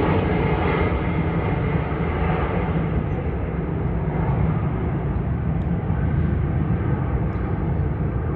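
Formation of military jets flying past overhead: a steady rumble of jet engine noise, heaviest in the low end and fading slightly as they pass.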